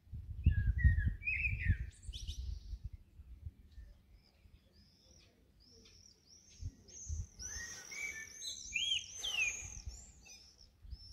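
Songbirds singing: a few chirps early on, then a run of quick, repeated down-slurred high notes in the second half. A low rumble comes in the first two seconds and is the loudest sound.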